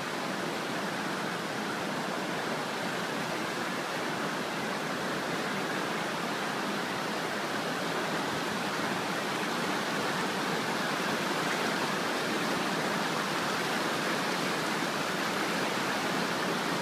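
Floodwater of a swollen mountain creek rushing across and beside a washed-out road: a steady, unbroken rush of churning whitewater that grows a little louder toward the end.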